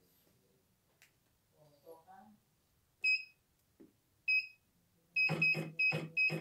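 Control-panel keys of a CNY E900 computerized embroidery machine beeping as buttons are pressed. There is a single short high beep about three seconds in and another just after four seconds, then a quick run of five beeps near the end.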